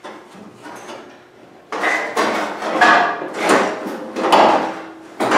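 A loose replacement sheet-steel quarter panel scraping and clunking against the car body as it is slid into place over the tail panel, in several loud scrapes from about two seconds in.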